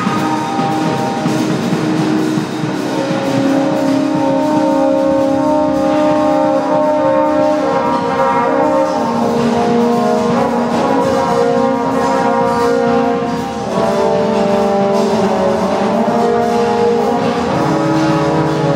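Live experimental drone/noise music: several held, brass-like pitched tones layered over a dense noisy wash, stepping to new pitches every few seconds, with a brief dip in loudness about three quarters of the way through.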